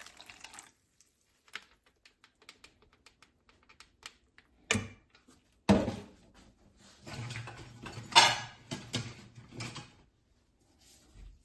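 Kitchen utensils and containers being handled: scattered light clicks, two sharp knocks about five and six seconds in, then a few seconds of clatter and rustling with one loud hit near the middle.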